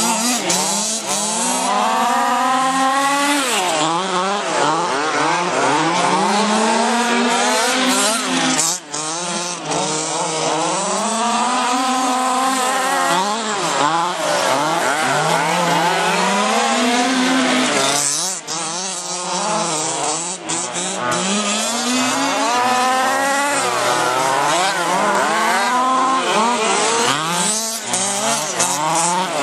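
Several quarter-scale RC race cars' small two-stroke gas engines running together, each one's pitch repeatedly climbing and dropping as the cars accelerate and lift off for the turns, overlapping one another.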